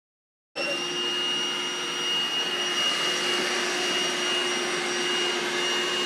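Vacuum cleaner running steadily: an even rush of air with a steady high-pitched motor whine. It starts abruptly about half a second in.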